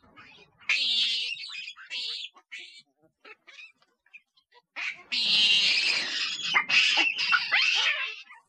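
Golden snub-nosed monkeys calling with high-pitched cries: a few short calls in the first couple of seconds, then a long run of loud, overlapping calls from about five seconds in.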